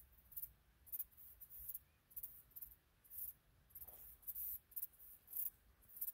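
Faint, high-pitched chirps of insects in a late-summer meadow, short rasps repeating irregularly about twice a second, over a faint low rumble.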